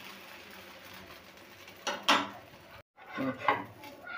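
A steady hiss, then clinks and scrapes of metal kitchen utensils against a pan about halfway through. The sound cuts off abruptly for a moment, then a few more clinks follow.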